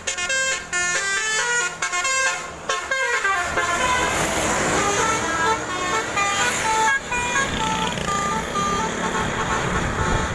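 Multi-tone Basuri telolet bus horn playing a quick tune of short notes that jump in pitch. About three and a half seconds in, loud engine and road noise swells up under the horn, which keeps playing.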